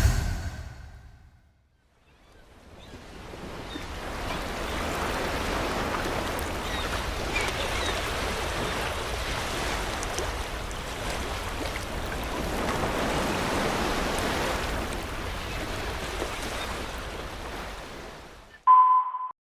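Ocean surf sound effect: a steady rushing of waves that fades in, swells and eases slowly, and fades out near the end. It opens on the dying tail of a whoosh and closes with a short, high, steady beep.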